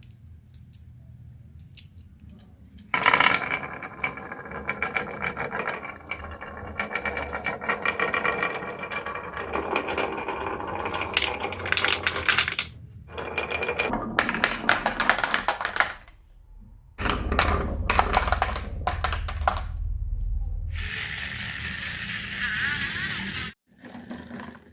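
Marbles rolling and clattering down a HABA wooden marble run in several long runs with short pauses. A few light clicks come first, a deeper rumble comes partway through, and a hissing rush comes near the end.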